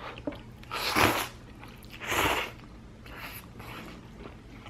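Two loud slurps of spicy instant noodles being sucked into the mouth, about a second apart, with faint chewing between.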